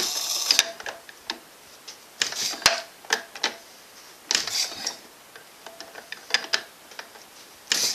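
A 1917 Ford Model T four-cylinder flathead engine being hand-cranked without catching: about six irregular bursts of clicking and rattling, one with each pull of the crank.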